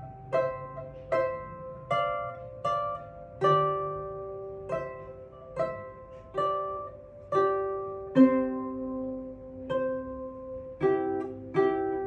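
Lever harp played solo: a slow melody of single plucked notes, each ringing and fading, about one every three-quarters of a second. About eight seconds in a lower note joins under the tune, and near the end the notes come quicker.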